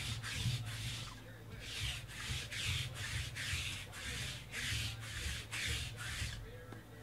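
Sticky lint roller rolled quickly back and forth over a table cover, each stroke a rasping, peeling rub, about two or three strokes a second. The strokes break off briefly about a second in, then resume and stop near the end.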